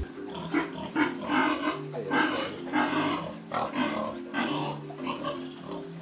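Pigs calling in a string of short grunts and squeals, about two a second, over soft background music with held notes.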